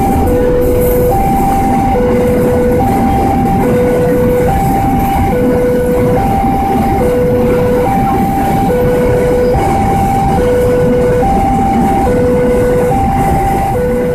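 Railway level-crossing warning alarm sounding a steady alternating hi-lo two-tone signal, switching pitch about twice a second, over the rumble of a container freight train rolling past in the first few seconds.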